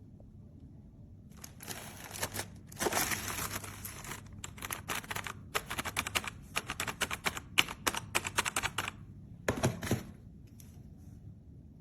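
Typing on a DIERYA T68SE 60% mechanical keyboard with red linear switches: rapid keystrokes in bursts, starting about a second and a half in and stopping about ten seconds in.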